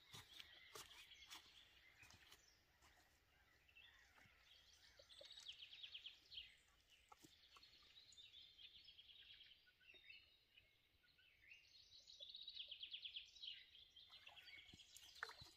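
Faint birdsong: a small bird sings two fast trilling phrases, about five seconds and twelve seconds in, among scattered high chirps.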